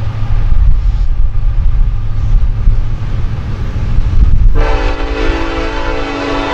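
Norfolk Southern diesel locomotive approaching with a heavy low engine rumble. Its air horn starts sounding suddenly about four and a half seconds in, a chord of several steady tones over the rumble.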